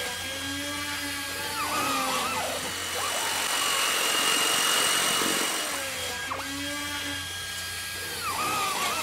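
Electronic intro music with gliding synth tones over a whooshing haze that swells in the middle; the same phrase starts again about six seconds in.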